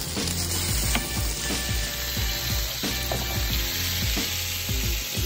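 Ribeye steak sizzling steadily as it sears in hot oil in a frying pan.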